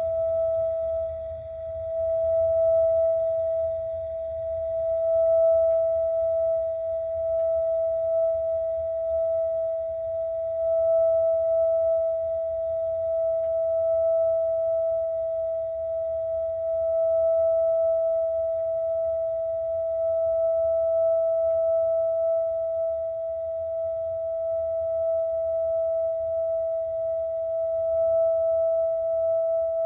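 A.O. Smith water heater giving off a steady high-pitched whine over a low rumble, swelling and fading slightly in loudness without a break: the abnormal noise it is faulted for.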